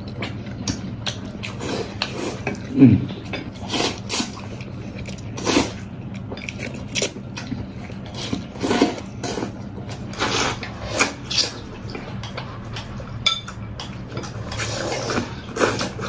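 Eating noodles with chopsticks from a porcelain bowl: a string of short, irregular slurps and chews, with chopsticks knocking against the bowl, over a low steady hum.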